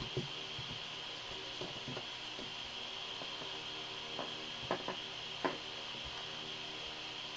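Dough being folded by hand and rolled flat with a glass bottle on a plastic cutting board: quiet handling noise with a few light knocks and taps, the clearest ones about halfway through, over a steady hiss.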